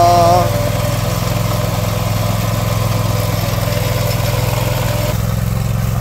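The engine of a Vermeer SPX25 remote-control tracked vibratory plow runs steadily as the machine drives along the plowed cable line, packing it back down. The engine note changes slightly about five seconds in.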